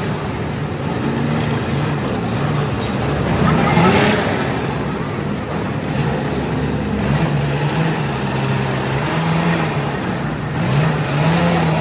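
Motor vehicle engines and road traffic running continuously with a wavering low hum, swelling as a vehicle passes about four seconds in.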